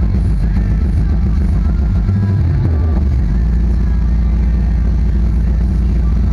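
Two 10-inch Alpine Type-E car subwoofers playing bass-heavy music loud, the deep bass far outweighing everything else. About two and a half seconds in, a bass note slides down in pitch.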